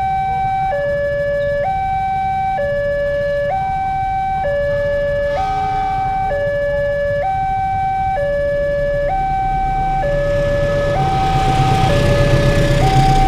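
Railroad level-crossing warning alarm sounding a steady two-tone high-low wail, each tone held just under a second. From about ten seconds in, the rumble of a long passenger train passing the crossing swells up beneath it.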